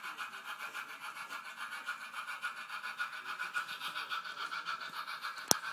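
Sn3 model steam locomotive's DCC sound decoder chuffing in a quick, even rhythm as the engine pulls a train, with a single sharp click near the end.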